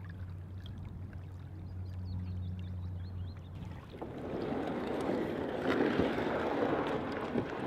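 Water sloshing and splashing around a kayak on a lake, growing louder about four seconds in. A low steady hum runs underneath for the first few seconds, then stops.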